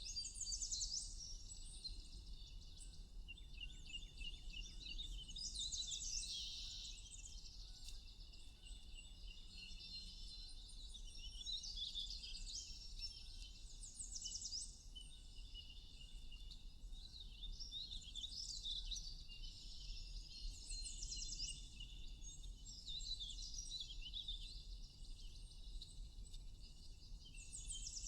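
Songbirds chirping and trilling in high, quick phrases that come back every few seconds, over a steady low rumble.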